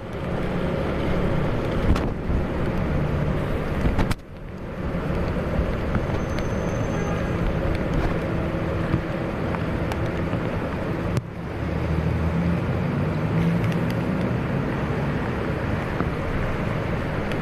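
Steady low, rumbling outdoor background noise, with two brief sharp drops in level about four and eleven seconds in.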